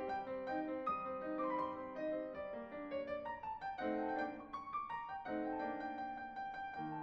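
Background piano music: a gentle melody over chords.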